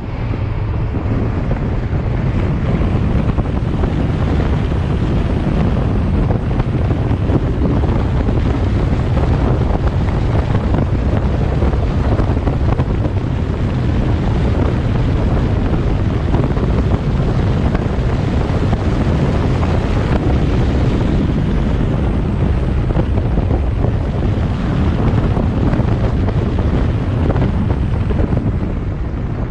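Steady wind rush and road noise from a car driving along, with wind buffeting the microphone.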